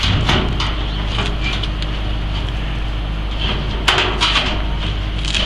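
Steady low rumble with light clatter of hand tools and one sharp knock about four seconds in.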